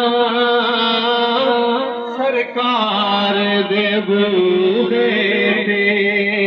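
A man singing a devotional naat into a microphone, drawing out long, wavering notes with a short break about two seconds in.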